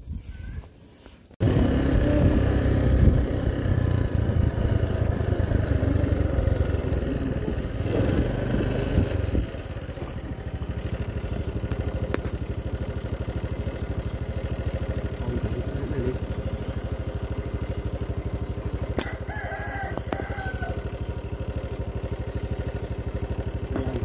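Motorcycle engine starting about a second in, running louder for several seconds, then settling to a steady idle.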